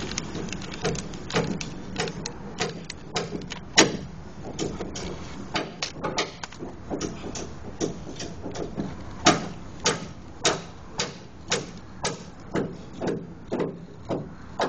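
A manual epoxy dispensing gun being pumped, its trigger and ratchet clicking sharply with each squeeze, irregularly at first and then about twice a second, as adhesive is forced into a drilled anchor-bolt hole in concrete.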